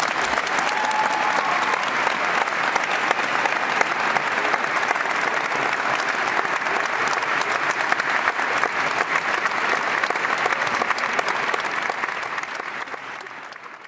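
Large audience applauding: a dense, steady clapping that fades away near the end.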